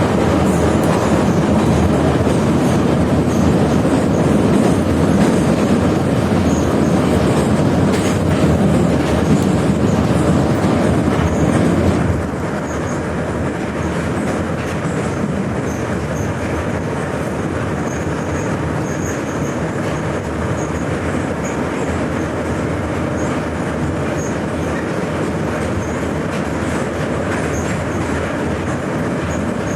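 81-717/714 "Nomernoy" metro train running through a tunnel, heard from on board: a steady loud rumble of wheels on rails with clickety-clack. About twelve seconds in, the noise drops suddenly to a quieter, even level.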